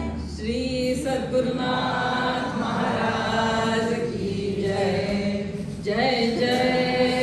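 A woman's voice chanting a devotional prayer into a microphone in long, held notes, with a few short breaks between phrases.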